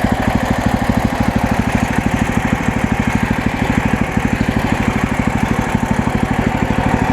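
The gasoline engine of a MechMaxx SM32 portable band sawmill running steadily with a rapid, even firing pulse.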